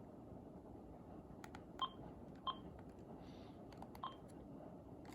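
AT&T E580-2 cordless handset's buttons being pressed: three short key beeps, the first two about half a second apart and the third about a second and a half later, along with the small clicks of the keys.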